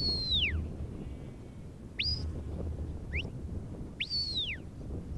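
Sheepdog handler's whistle commands to a working Border Collie. A long whistle rises, holds and falls; a short rising whistle comes about two seconds in, another about three seconds in, and a second long rising-then-falling whistle near the end.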